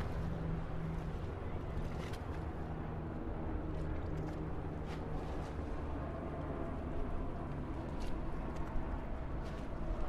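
Steady expressway traffic noise: a continuous low rumble of passing vehicles with a low hum that fades about halfway through, and a few faint short clicks.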